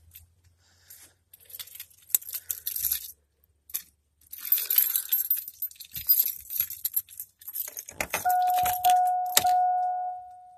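Keys jangling and clicking as they are handled. About eight seconds in, a repeating electronic warning chime starts and keeps going; this is the 2001 GMC 2500HD's dashboard chime, heard just before the engine is started.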